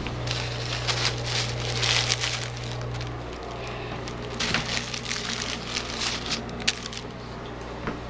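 Irregular crackling and rustling of things being handled, over a steady low hum that is louder for about the first three seconds and then drops.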